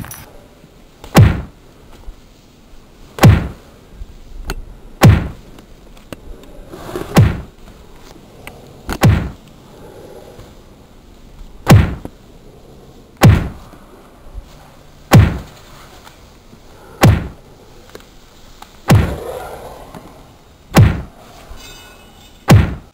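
A heavy whacking impact sound effect repeated twelve times, about one every two seconds, each a sharp loud hit over a low background.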